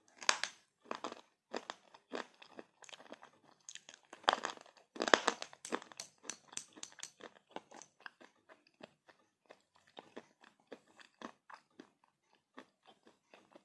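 Slate pencils being bitten and chewed: a run of crunchy, hard-sounding crunches, densest and loudest in the first half and thinning to sparser, fainter crunches later.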